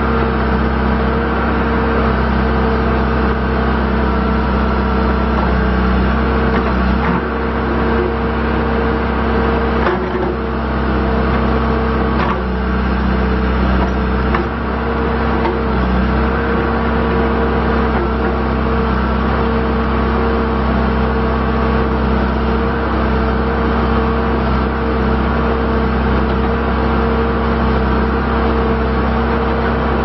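2004 John Deere 310G backhoe loader's diesel engine running steadily while the backhoe boom and dipper are worked, with a steady whining tone over the engine and a few light knocks.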